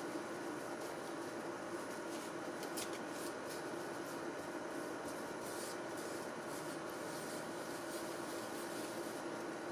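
Tissue paper wiping old thermal paste off a CPU and heatsink: faint, irregular rubbing and scratching over a steady low hum.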